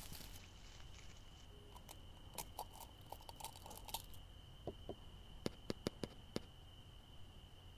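Light clicks and taps over a faint, steady high tone. There is a cluster of small clicks a few seconds in, then a quick run of about six sharper ticks near the end.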